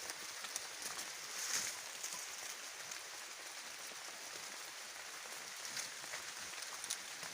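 Steady outdoor hiss with many scattered faint crackles and ticks, with no single loud event.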